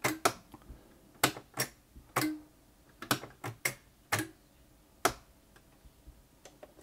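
About ten irregular clicks from the controls of a Singer Futura 2002 electronic sewing machine as it is switched and its stitch-selector buttons are pressed, in an attempt to reset it because the buttons are not responding.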